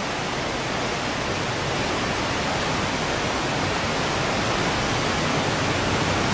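Floodwater rushing and pouring across a subway station floor, a steady unbroken rush of water.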